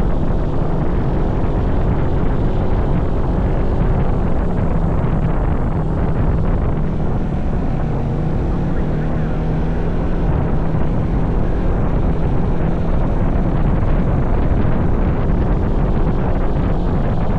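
A vehicle engine drones steadily under heavy wind noise on the microphone while riding.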